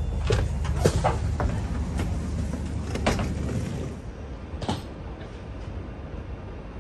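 Footsteps and scattered knocks from passengers and their bags going down the stairs and out of a double-deck TGV carriage, over the train's steady low rumble. About four seconds in this gives way to quieter railway platform background with a single click.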